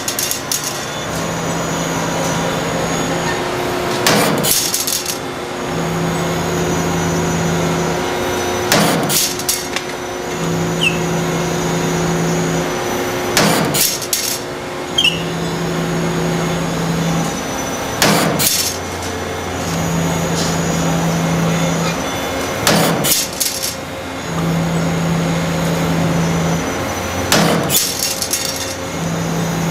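CNC spring-making machine running through repeated production cycles. Each cycle is a steady hum of about two seconds followed by a quick cluster of sharp knocks, repeating about every four and a half seconds.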